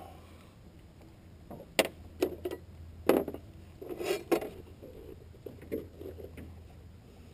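Knocks and clatter on the seat of an aluminum boat as a freshly caught crappie is handled and laid on a measuring ruler. There are several sharp knocks from about two to four and a half seconds in, then softer taps.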